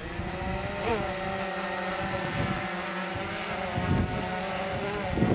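Quattro X quadcopter's electric motors and propellers whining in flight: several steady tones that shift in pitch as the motors change speed, with a quick rise about a second in. Wind gusts buffet the microphone underneath.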